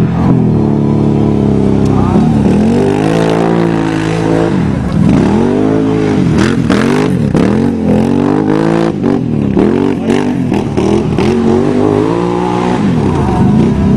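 2008 Can-Am 800 ATV's V-twin engine running and revving, rising and falling in pitch about once a second through the middle stretch, with scattered sharp clicks mixed in.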